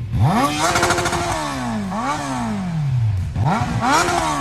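Kawasaki Z900 inline-four engine running with its stock exhaust removed, blipped three times, the revs rising sharply and falling back after each. It is unmuffled open-header sound, which the rider calls a very nasty, fierce noise.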